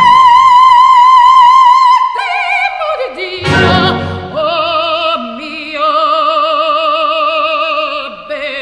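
Operatic singing with strong vibrato. A high note is held for about two seconds at the start, followed by a run of held and gliding notes.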